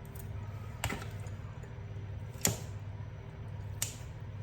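Three sharp clicks, about a second and a half apart, of a utensil striking the dish as cooked chicken is cut into smaller pieces, over a steady low hum.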